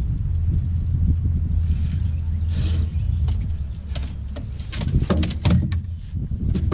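A steady low rumble, then a run of sharp knocks and clicks, like gear being moved and set down in a boat, from about four seconds in.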